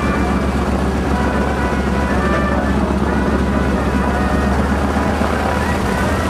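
A biplane's engine running steadily on the ground, a loud, even drone heard from inside the cockpit.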